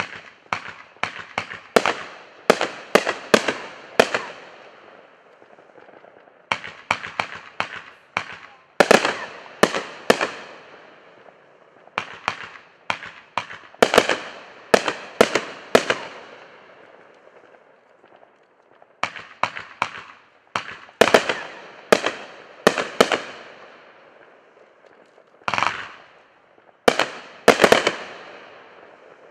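A 25-shot consumer firework cake firing volleys of sharp aerial shots, several a second, in about six bursts separated by short pauses. Each volley is followed by a fading noisy tail.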